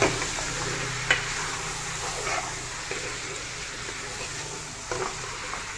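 Mutton pieces sizzling steadily as they fry in an aluminium pressure cooker, stirred with a metal spoon that knocks and scrapes against the pot a few times.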